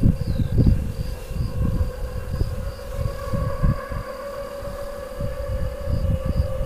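Crickets chirping in a pulsing rhythm of about three high chirps a second, over a steady low hum, with wind buffeting the microphone.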